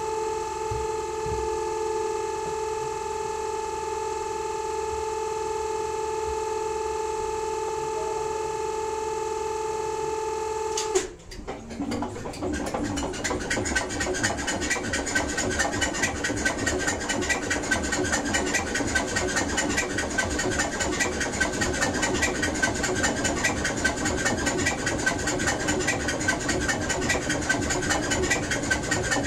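Cold start of the SNCF BB 68540 diesel locomotive's engine. A steady whine runs for about eleven seconds, then cuts off, and the engine fires and runs with a fast, even beat that grows louder over the next few seconds.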